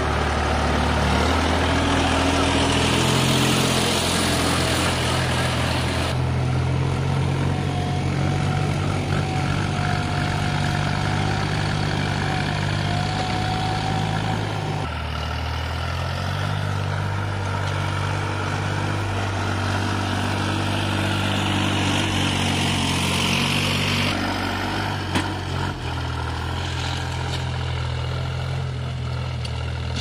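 Sonalika DI 47 RX tractor's diesel engine running steadily as it hauls a trolley loaded with mud over a dirt track; the engine note shifts about halfway through.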